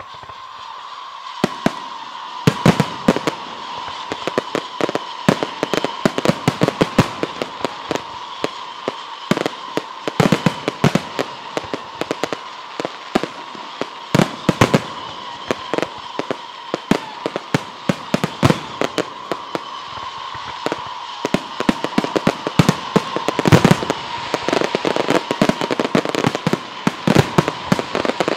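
Aerial firework shells launching and bursting in quick succession: a dense, irregular run of bangs and crackles that begins about a second and a half in and grows busier toward the end. A steady high tone runs underneath.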